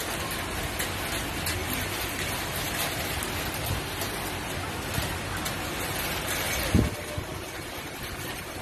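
Steady rain falling, a dense hiss scattered with the ticks of single drops. One dull thump comes about two-thirds of the way through.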